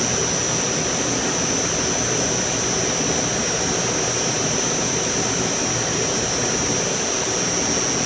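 Steady rush of air from a running Liebert Mini Mate precision air-conditioning unit, with a constant high-pitched whine above it.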